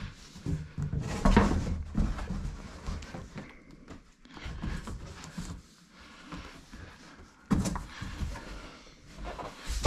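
Heavy cardboard shipping box being handled and shifted: irregular knocks, scrapes and rustles of cardboard, with heavier thumps about a second in and again some six seconds later.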